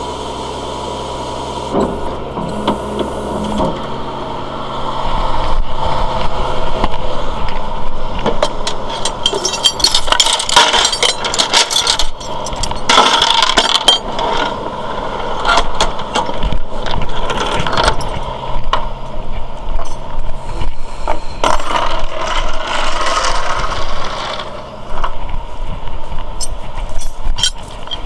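Tow truck engine idling, then from about four seconds in a long run of metal clanking and rattling as tow chains and J-hooks are handled.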